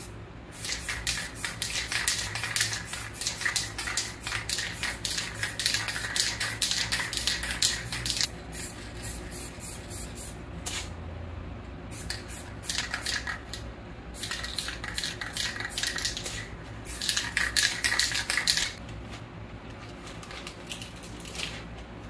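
Aerosol spray paint can spraying: one long spray of about seven seconds, then four shorter sprays with pauses between.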